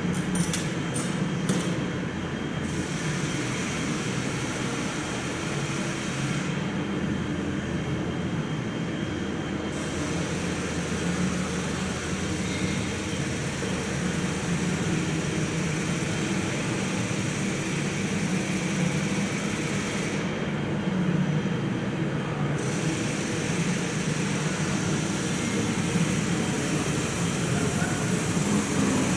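Steady low mechanical rumble with a hiss over it, unchanging throughout, with a few faint clicks in the first couple of seconds.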